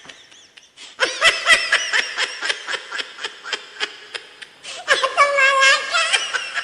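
Meme laughter sound effect: a person snickering in quick, pitched bursts of about four or five a second, growing fainter. A second, louder and higher-pitched laugh starts about five seconds in.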